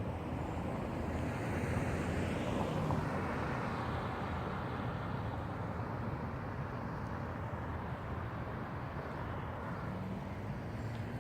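Road traffic noise: a steady low rumble with a vehicle passing, loudest about two to three seconds in.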